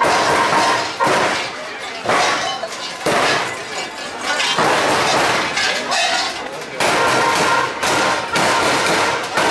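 Many large cowbells worn by costumed Perchten clanging together as they jump and shake. The clanging is loud and dense and comes in surges every second or so.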